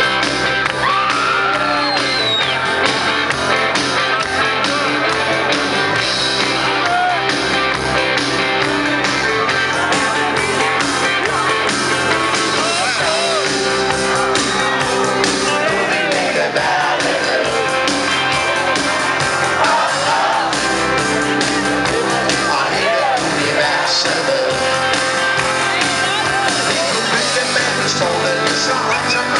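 Live rock band playing electric guitars and bass over a steady beat, with shouts and whoops from the crowd.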